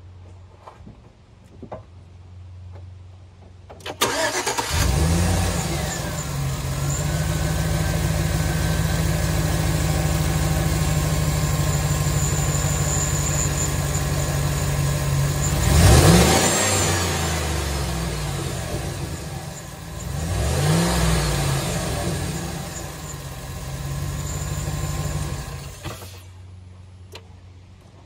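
2013 Chevrolet Silverado 1500's 4.8-litre V8 cranked and started about four seconds in, idling steadily, revved briefly twice, the first rev the loudest, then switched off about two seconds before the end. Its intake tube has had the resonator tubes cut off and patched, which makes the intake noise louder.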